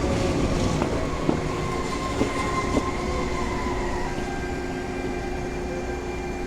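CPTM Série 2000 electric train's ADtranz GTO VVVF inverter traction drive whining over the running rumble. The tones drift slightly, then switch to a new, higher set about four seconds in as the inverter changes step. A few light clicks from the wheels come in the first three seconds.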